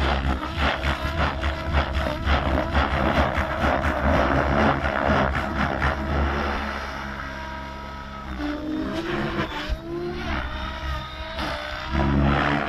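ALZRC N-Fury T7 electric 3D RC helicopter flying aerobatics: the rotor and brushless motor sound rises and falls in pitch as it manoeuvres. It is loud at first, fades around seven seconds in, and grows loud again near the end as it passes closer.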